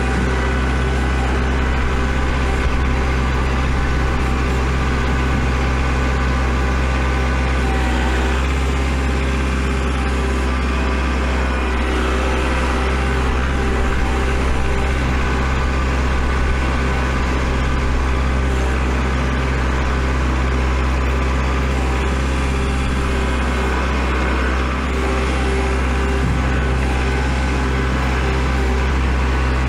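Kubota L4701 tractor's diesel engine running at a steady speed as the tractor plows snow.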